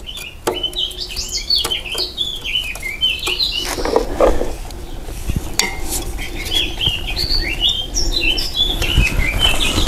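A songbird singing in two long warbling phrases, with scattered light metallic clicks of a screwdriver working the tension screw on a bicycle V-brake arm.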